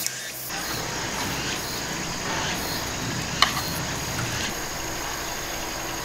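Insects chirring steadily in a high, even tone, with a single sharp click about three and a half seconds in.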